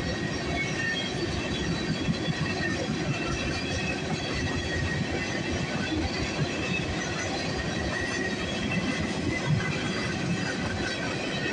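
A string of freight tank cars rolling steadily past, a continuous rumble and clatter of wheels on the rails.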